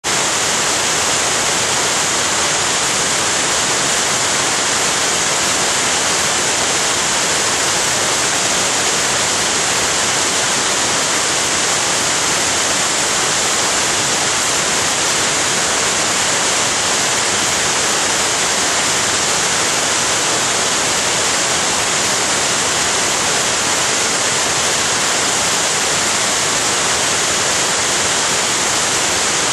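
Waterfall rushing in a loud, steady, unbroken hiss of falling water.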